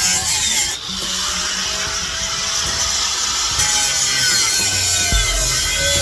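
A power tool cutting through the steel shell of a sealed refrigeration compressor unit, a steady cutting noise whose pitch wavers as it works.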